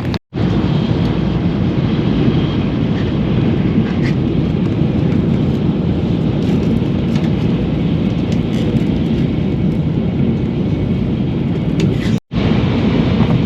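Steady rumble and rush of a Shinkansen bullet train running at speed, heard from inside the passenger car, cut off for a split second just after the start and again near the end.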